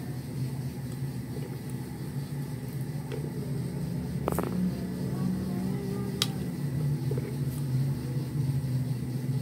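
A steady low mechanical hum, with faint clicks about four seconds in and again around six seconds in.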